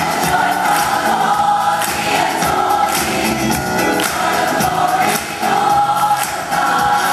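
Large mixed rock choir singing an upbeat gospel-style song in full voice over a steady beat.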